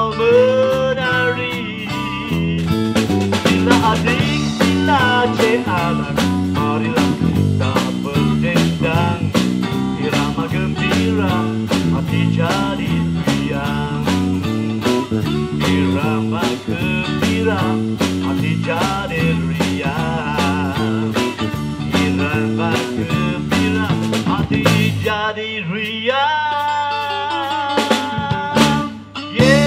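A live electric guitar, bass guitar and drum kit play an upbeat twist-rhythm tune with no vocals, the lead guitar bending notes over a steady drum beat. About 25 seconds in the drums drop out and the guitar plays on alone over a held bass note, with a final hit at the end.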